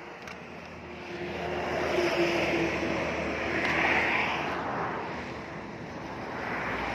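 Engine noise of a passing motor vehicle with a steady low hum, swelling from about a second in, strongest around the middle, and fading again.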